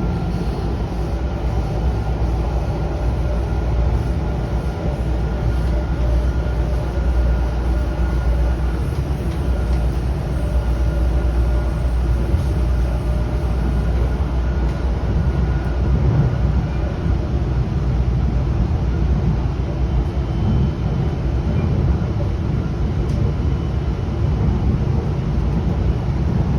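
Sound Transit Link light-rail train running, heard from inside the passenger car: a steady low rumble with a faint whine.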